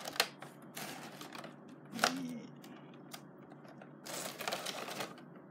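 Clicks and rustling from a hard clear-plastic blister pack being handled, in short spells, with a brief vocal sound about two seconds in.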